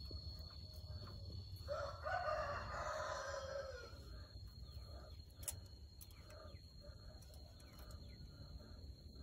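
A rooster crowing once, a call of about two seconds, over a steady low rumble.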